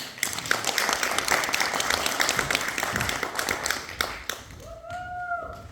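Audience clapping, a dense patter of many hands that dies away after about four seconds. Near the end comes a short held tone.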